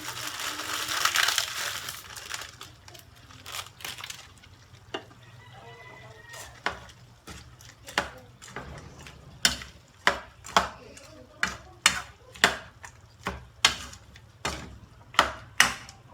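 A short hiss of sizzling at the start, then a cooking utensil knocking against the pan as noodles are stirred in it. The sharp knocks are scattered at first, then fall into a steady beat of about two a second in the second half.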